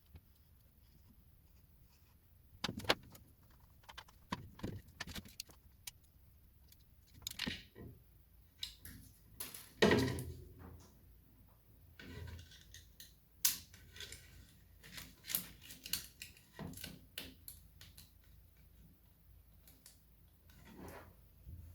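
Irregular clicks and clatters of small hard objects being handled and set down, loudest about 3, 10 and 13 seconds in.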